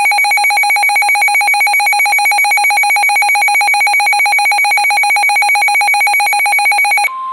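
Emergency weather alert alarm: a loud, rapidly pulsing electronic beep, ringing like a telephone bell. Just before the end it cuts off and gives way to a single steady tone, the 1050 Hz warning tone that precedes a weather radio bulletin.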